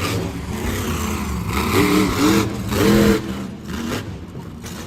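Monster truck engine revving, with rising-and-falling blips of pitch about two seconds in and again near three seconds, the second the loudest.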